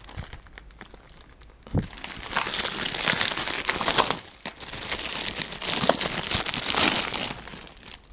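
Thin plastic produce bag crinkling as hands rummage in it and pull out a peach, in two long stretches, starting about two seconds in and again from the middle until near the end, with a few light clicks before.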